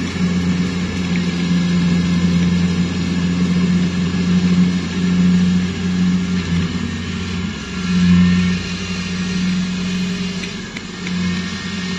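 Combine harvester engine running steadily. Its level rises and falls a few times and peaks briefly about eight seconds in.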